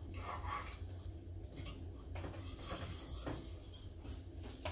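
Plane iron rubbed flat on its back across a sharpening stone: a few light, short scraping strokes taking off the burr.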